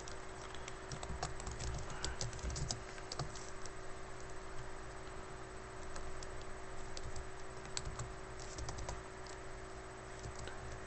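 Computer keyboard typing in two quick bursts of keystrokes, one starting about a second in and another around seven to nine seconds in, over a steady low electrical hum.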